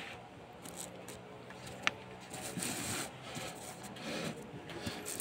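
Faint rubbing and scraping of a paper sheet being handled, with one sharp click about two seconds in.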